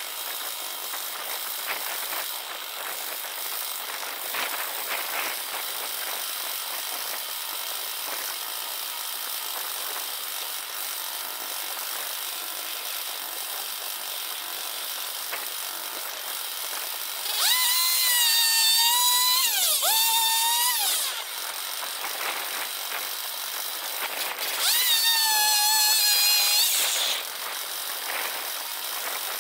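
Chainsaw on a chainsaw sawmill, in sped-up footage, running steadily, then revved hard twice for a few seconds each, the second burst near the end, its high pitch dipping and recovering during each rev.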